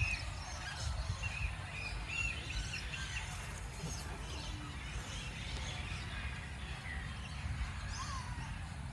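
Several birds chirping and calling, with a run of short repeated chirps in the first two seconds, over a steady low rumble.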